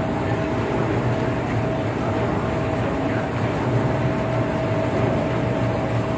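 Non-woven fabric roll cutting machine running: a steady electric-motor drone with a constant whine, unchanged throughout.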